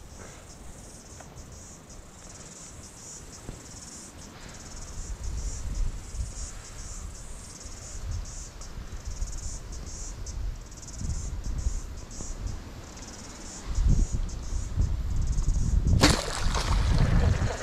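Insects chirring steadily in a high, pulsing drone, over a low rumble of wind buffeting the microphone. Near the end a sudden loud rush of noise cuts in.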